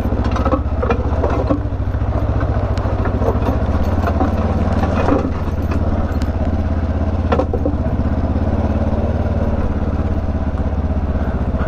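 Kawasaki KLE 500's parallel-twin engine running steadily at low revs as the bike rides down a rough trail, with scattered knocks and clatter from the bike over the bumpy ground.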